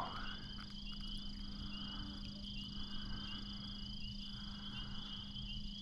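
Evening chorus of crickets and frogs: a steady, fast-pulsing high trill, with softer frog calls rising and falling in repeated stretches beneath it.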